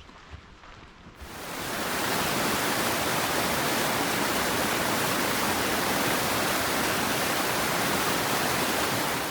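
Steady rush of fast-flowing water, fading in about a second in and fading out at the end. A few faint footsteps on the trail come before it.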